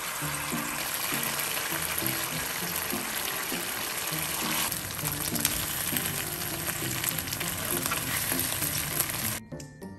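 Food frying in a hot pan: a steady sizzle with fine crackles that cuts off suddenly near the end.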